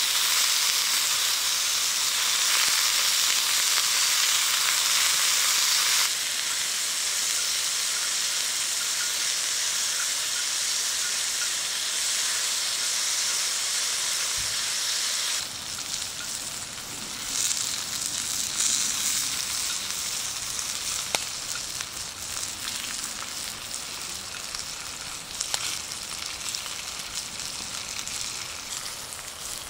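Pork belly–wrapped asparagus rolls sizzling in hot fat in a skillet: a steady frying hiss. It drops in level about six seconds in and again about halfway through.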